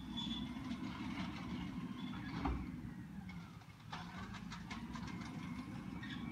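Garbage truck working down the street: its diesel engine runs with a low rumble, and there are short high squeals and a few clanks, with the engine pitch rising and falling.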